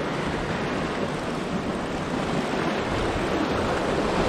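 Sea surf washing over rocks, a steady rush of noise, with wind on the microphone.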